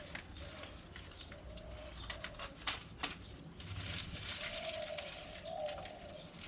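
A bird calling: a few low, short notes that rise and fall, with a couple of sharp clicks about three seconds in and a rustling hiss.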